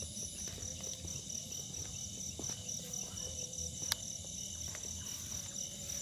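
Crickets chirring in a steady night chorus, high-pitched, with one band pulsing in a fast trill. Under it runs a low, irregular rumble, and there is a single sharp click about four seconds in.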